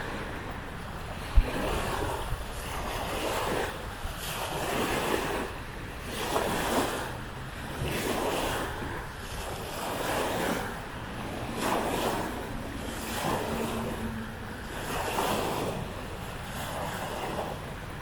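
Small waves lapping and breaking on a lagoon shore in a steady rhythm, one swell about every second and a half, with wind buffeting the microphone. A single short thump about a second in.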